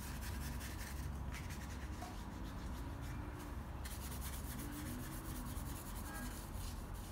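Paintbrush bristles rubbing against canvas paper in quick repeated strokes, faint, over a low steady hum.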